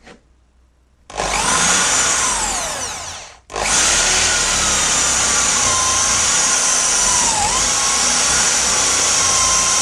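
Power drill driving a screw into the wooden greenhouse frame: a first run of about two seconds whose pitch sinks as the motor labours, a brief stop, then a long steady run of about seven seconds as the screw is driven home.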